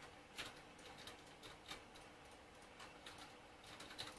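Near silence, with a few faint, scattered taps and ticks from handling a makeup brush and a powder highlighter compact.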